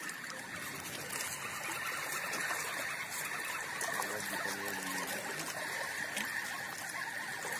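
River water lapping and trickling among the shoreline rocks, a steady wash of sound.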